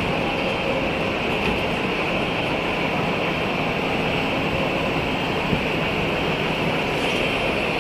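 Steady, even background noise of a large, busy bus-terminal concourse, with no distinct events standing out.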